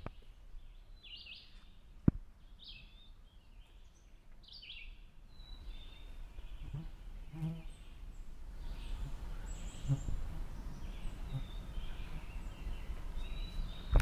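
A small songbird chirping: about five short, high chirps in the first few seconds, then fainter calls. There is a sharp click about two seconds in, and soft low thumps of a handheld recorder being handled later on.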